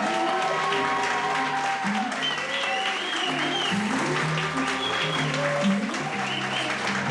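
Guests applauding over music.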